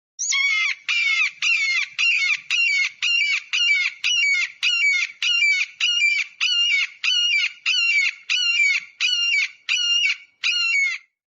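Eagle calling: a long, even series of short, high, harsh calls, about two a second.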